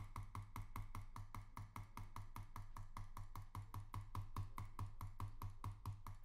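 Rapid, even ticking, about five or six ticks a second, from an online blackjack game's decision countdown timer sound effect; it stops abruptly near the end.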